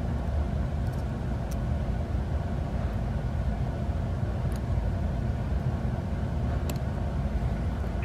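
A steady low background rumble, with a few faint clicks of metal tweezers picking at the plastic end cap and axle of a Roomba rubber extractor roller.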